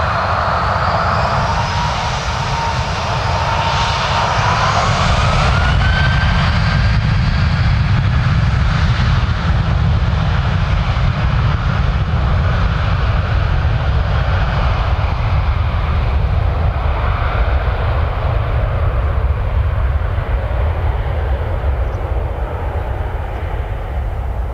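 Boeing 737's twin jet engines running as the airliner taxis and turns onto the runway: a heavy low rumble with a high whine that rises in pitch and grows louder about three to five seconds in as the engines spool up, then holds steady.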